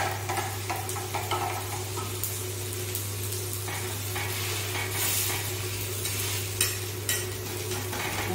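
Uthappam sizzling on a hot tawa while a metal spatula scrapes and clicks against the griddle. A pan is set down with a knock at the very start.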